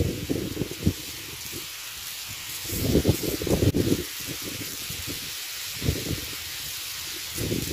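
Wind buffeting an outdoor microphone in uneven gusts over a steady hiss. The strongest gust comes about three seconds in, and there is a single sharp click just before four seconds.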